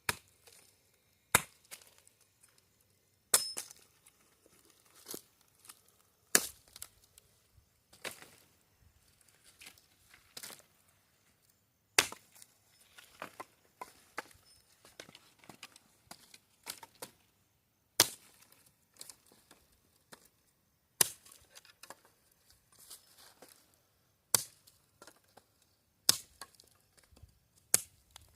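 A dozen or so sharp chopping strikes at uneven intervals, one every one to three seconds, with lighter knocks and rustling between them and a longer stretch of only light knocks about halfway through.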